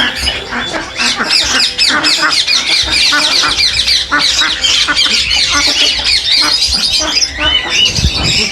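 Many caged birds calling at once, a dense chatter of overlapping high chirps and squawks.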